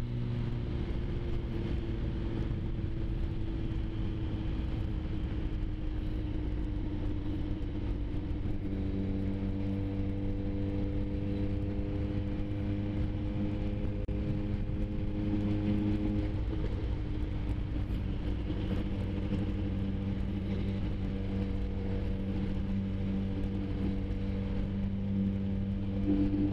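Suzuki GSX-R sport bike's inline-four engine running at a steady cruise under a rush of wind noise. The engine note drifts lower, shifts about halfway through, and climbs again near the end as the speed changes.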